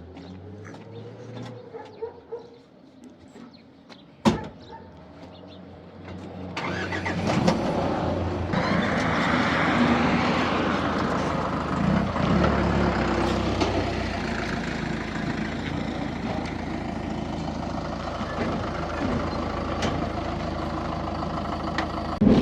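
A door shuts with a single sharp knock, then a couple of seconds later a vehicle engine starts and keeps running loudly.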